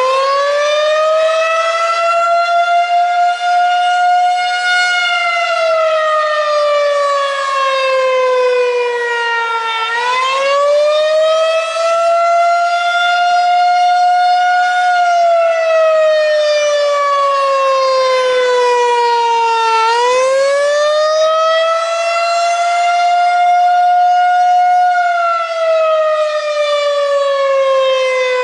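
Federal Signal 2001-130 outdoor warning siren sounding the Attack signal: a loud wail that climbs in pitch over a few seconds, holds, then slides down, repeating about every ten seconds, three cycles in all.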